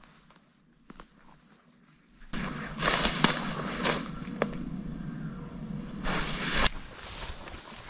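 Tall meadow grass rustling and crackling against clothing and the head-worn camera as a person walks through it, with footsteps. The first two seconds are quiet with a couple of light snaps. About two seconds in, loud crackling brush noise with sharp clicks starts, then cuts off abruptly near the end, leaving softer steps.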